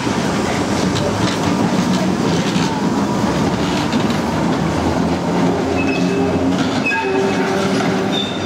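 1911 Hurst Nelson vintage electric tram rolling past on street rails: steady rumble and clatter of wheels on track, with a few short high wheel squeals in the last couple of seconds as it moves off along the curving track.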